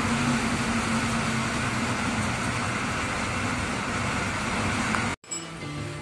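Cabin noise inside a moving bus: a steady rush of engine and road noise with a constant low drone. Near the end the sound cuts out for an instant and comes back quieter.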